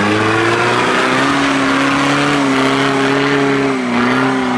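Tractor engine revved high and held under power, its pitch steady for several seconds and easing down slightly near the end.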